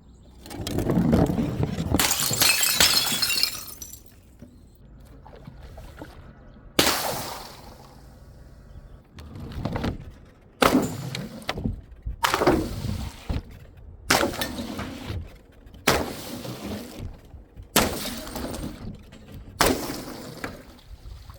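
Glass bottles smashing: a long crash of shattering glass in the first few seconds, then a run of single sharp smashes about every two seconds.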